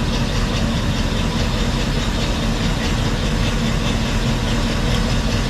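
An engine idling steadily, with a constant low hum and no change in speed.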